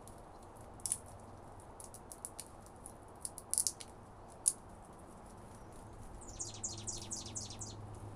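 Small birds calling at close range: a few scattered high chirps, then a quick run of short falling chirps near the end.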